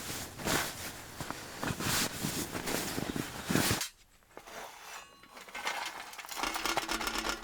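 Footsteps crunching on the ground, about two a second, that cut off abruptly about four seconds in. Background music starts near the end.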